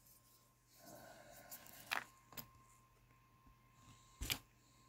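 Faint handling sounds as a chainsaw's diaphragm carburetor is worked on by hand: a soft rustle, then a few small clicks and taps of its metal parts, the loudest a double click near the end.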